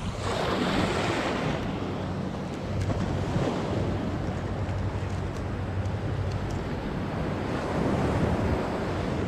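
Surf washing up a sand beach, swelling about a second in, again around three seconds and near eight seconds, with wind rumbling on the microphone.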